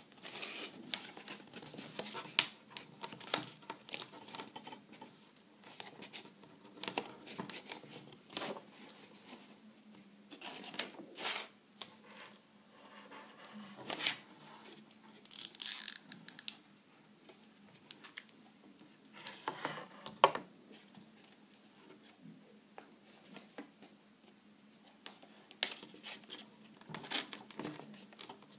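Pink card being folded into accordion pleats and creased by hand on a wooden tabletop: irregular crinkles and rustles of the paper, with a few sharper clicks among them.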